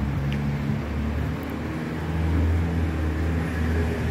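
City street traffic: a car engine idling close by with a steady low hum, and other cars moving around it.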